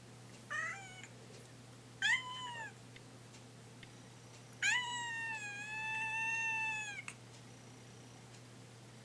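Young orange-and-white cat meowing three times, two short meows and then one long, drawn-out meow, a plaintive demand to have the door opened.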